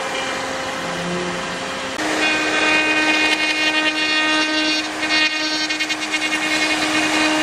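Five-axis CNC router's spindle whining steadily as its bit carves a small wooden figure, with the hiss of the cut underneath. The whine steps slightly higher in pitch about two seconds in.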